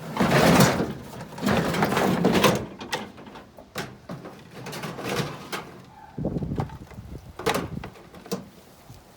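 Clattering and scraping of scrap parts being handled, a long rough scrape in the first couple of seconds followed by a string of separate knocks and clicks.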